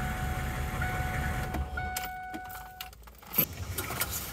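6.5-litre turbo diesel of a 2001 Hummer H1 idling with a steady low rumble and a thin high tone, both fading out between about one and a half and three seconds in. A single sharp knock follows at about three and a half seconds, then a few light clicks.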